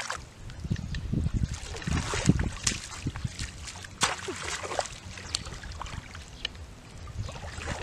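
Shallow muddy water splashing and sloshing as hands grope through it and a bamboo plunge-basket fish trap is pushed down into it. The splashing is uneven and heaviest in the first few seconds, with a few sharp taps after.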